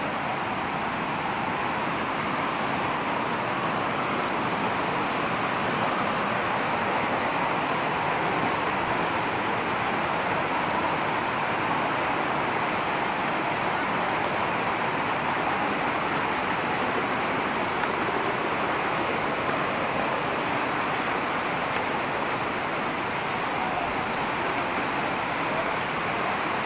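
Steady rush of flowing water, even and unbroken.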